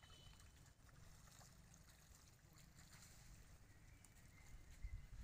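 Near silence: a faint low rumble with light water splashing from a long-tailed macaque swimming.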